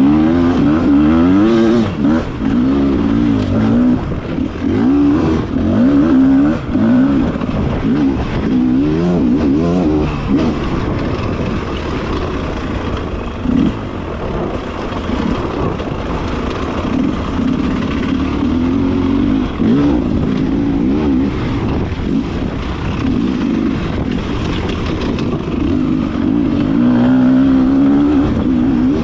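Beta RR enduro motorcycle engine revving up and down hard as it is ridden, its pitch swinging rapidly through the first ten seconds or so, steadier through the middle, and climbing again near the end.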